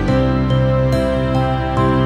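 Soft, slow instrumental background music: held notes with a new one starting about every half second.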